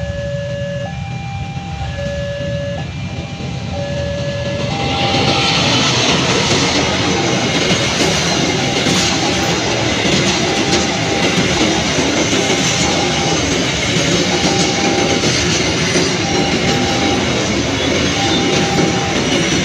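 A level-crossing alarm sounds, alternating between two tones about once a second, over a low rumble. About five seconds in, a long freight train of tarpaulin-covered cement wagons passes close by with a loud, steady rush of wheels on rails, while the crossing alarm keeps sounding faintly behind it.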